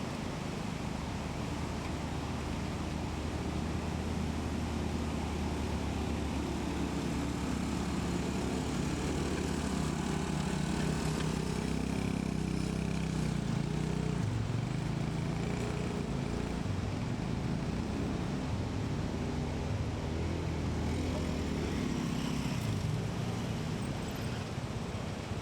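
An engine running steadily, its pitch rising and falling through the middle stretch.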